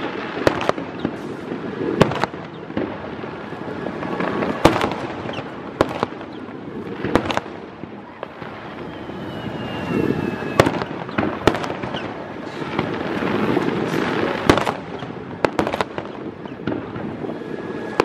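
Aerial fireworks shells bursting over and over at uneven intervals, sharp bangs every second or so with a rumbling, crackling wash between them and a brief thin whistle about nine seconds in.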